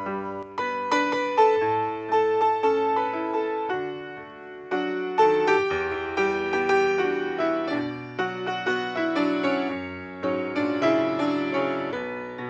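Grand piano playing a song introduction, a melody over chords, each note struck and left to ring, with a brief softer pause about four seconds in.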